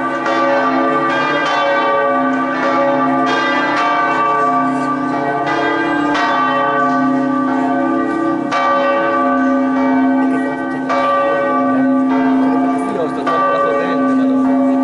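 Several large church bells of Prato Cathedral ringing together in a festive 'distesa', swung full circle so their strokes overlap into a continuous peal, with a new strike about once a second.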